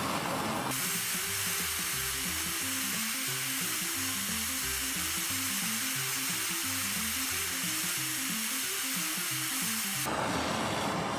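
Handheld plumbing torch flame hissing steadily while it heats aluminium to anneal it. Background music with a simple low melody plays underneath.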